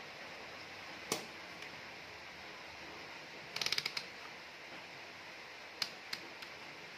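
Rotary range selector of an analog multimeter being turned, clicking through its detents: one click about a second in, a quick run of about seven clicks near the middle, and two or three more near the end, as the meter is set to the ×10 resistance range.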